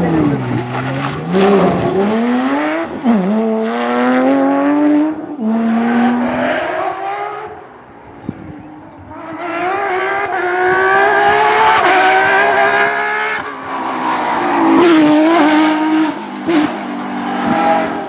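Porsche 911 GT3 rally cars' flat-six engines revving hard past the roadside. The pitch climbs as they accelerate and drops sharply at gear changes and lifts off the throttle. The sound fades about eight seconds in, then a second car comes up under hard acceleration and downshifts with throttle blips.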